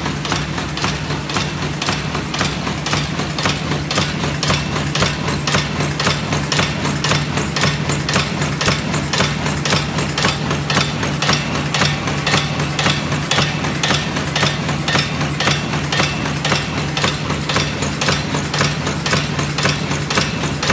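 Favorit 140 horizontal powder filling and packaging machine running steadily: a constant motor hum under a fast, regular clicking from its cycling mechanism.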